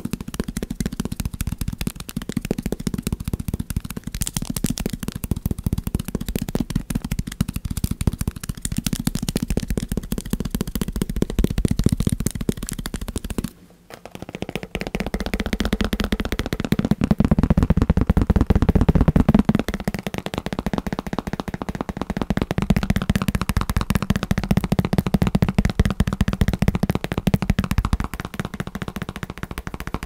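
Fast fingertip tapping on a pad of post-it notes, close to the microphone. After a brief pause about 14 seconds in, it turns to fast tapping on a padded armrest.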